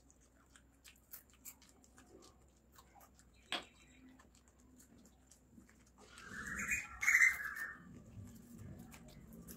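Soft, scattered crunches and clicks of a small piece of crisp fried okra pakoda being chewed. About six seconds in comes a louder, hissy sound lasting about two seconds.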